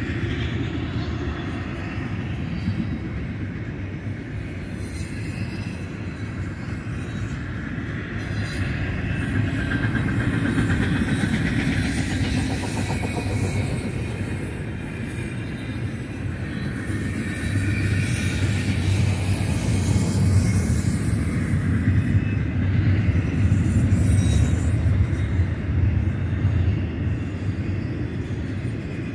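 Double-stack container freight train rolling past: a continuous rumble and clatter of steel wheels on rail from the passing well cars. It grows louder in the second half.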